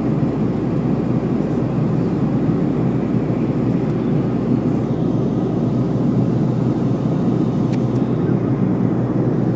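Steady drone of engines and airflow heard inside the cabin of a turboprop airliner in cruise, with a constant low hum beneath.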